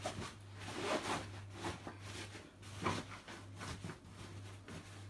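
Rustling and soft scuffing as a padded dog bed is pushed and settled into place on the floor of a cabinet space, with a few light knocks.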